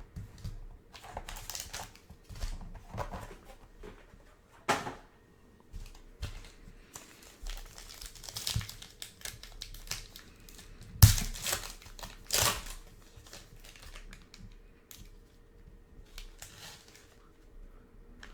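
Sealed trading-card pack wrappers being torn open and handled: irregular crinkling, with a few sharper, louder rips about five seconds in and twice around eleven to twelve seconds in.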